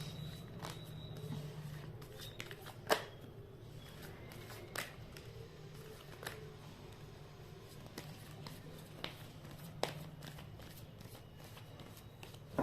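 A tarot deck being shuffled by hand: soft card rustling broken by a few sharp card snaps, the loudest about three seconds in, over a low steady hum.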